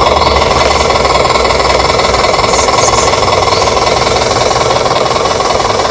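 Radio-controlled pickup truck running steadily, a fast, even mechanical clatter like a small engine.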